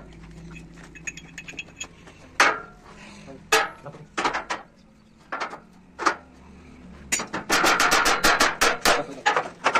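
Hammer blows on metal, each with a short ring: a few separate strikes, then a fast run of about five strikes a second near the end.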